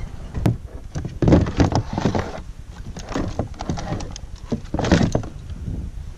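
Irregular knocks, clicks and rattles of kayak gear being handled: hard plastic fittings and a trolling-motor shaft and mount bumped and set in place. Clusters of clattering are loudest about a second in and again near the end.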